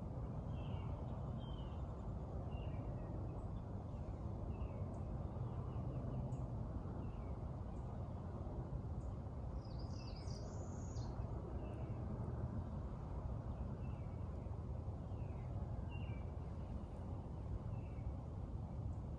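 Songbirds chirping faintly in short, repeated calls, with a brighter, higher call about ten seconds in, over a steady low background rumble.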